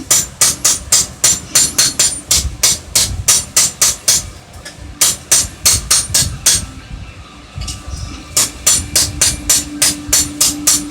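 Hammer striking metal on an anvil in a steady rhythm, about three to four blows a second, each with a bright metallic ring; the hammering pauses for a moment past the middle, then resumes.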